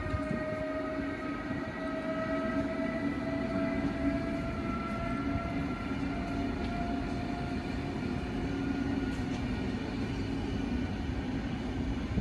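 DSB Litra EB (Siemens Vectron) electric locomotive hauling passenger coaches, its traction motor whine rising slowly and steadily in pitch as it accelerates. Under it runs a steady hum and the low rumble of wheels on rails.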